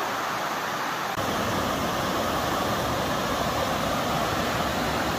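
River water rushing and cascading over sloping bare rock slabs, a steady rush of noise that becomes fuller and deeper about a second in.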